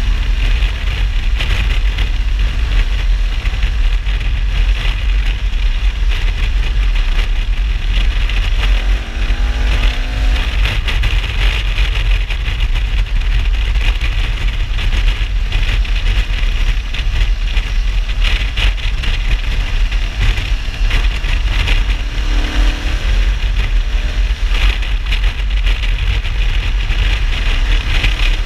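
Heavy wind rush on the action camera's microphone from riding at speed, with the KTM 1290 Super Adventure S's V-twin engine underneath. The engine note glides in pitch twice, about nine seconds in and again about twenty-two seconds in.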